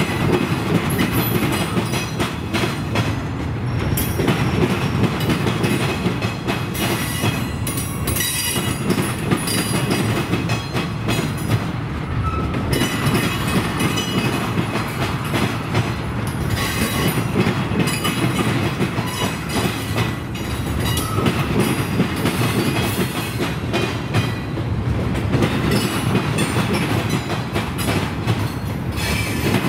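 Train rolling past, its steel wheels clacking steadily over the rail joints.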